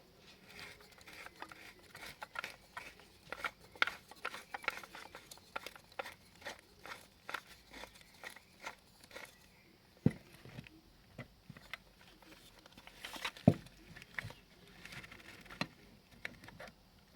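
Strap-type frame corner clamp being handled: a run of quick plastic clicks and rustles, then two sharper knocks about ten and thirteen seconds in.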